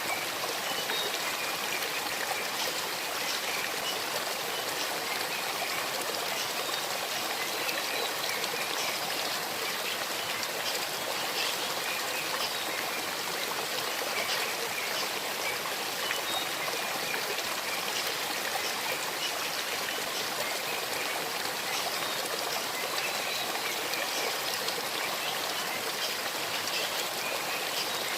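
Small forest stream babbling over stones: a steady rush of flowing water with bright trickling splashes.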